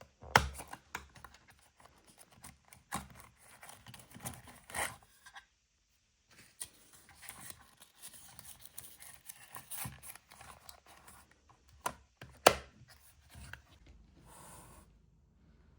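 Paper and small objects being handled: rustling, scratching and tearing sounds with scattered clicks and two sharp taps, and a short hiss near the end.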